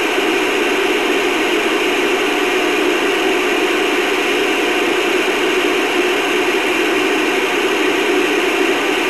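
CB radio receiver giving out steady static hiss on an open channel, with no station coming through between skip transmissions.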